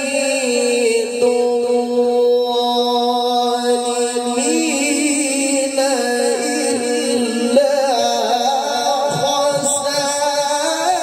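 A man's voice chanting a Quran recitation through a microphone and PA loudspeakers, holding long notes with wavering ornamented turns and climbing to a higher note about four seconds in.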